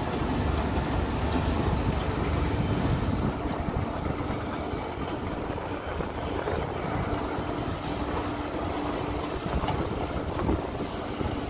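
Silage baling and wrapping machine running, with the low, steady mechanical rumble of its drive and a tractor engine running alongside as silage is tipped into the hopper. A faint steady hum runs through the middle of the sound.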